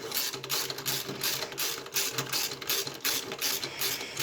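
Hand ratchet wrench clicking in quick, even strokes as it turns the alternator's belt-adjuster bolt, drawing the drive belt tight.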